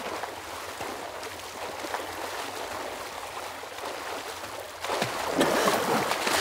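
Water splashing from two swimmers racing front crawl in a pool. About five seconds in it grows louder, with breathy gasps as they finish.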